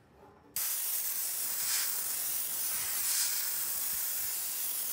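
Compressed air from a shop compressor's blow-gun nozzle hissing through a cryostat's condenser coils, blowing the built-up dust out of them. It starts abruptly about half a second in and then runs steadily.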